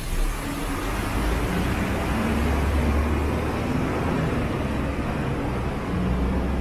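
Motor traffic: a road vehicle's engine running with tyre and road noise, a steady low rumble.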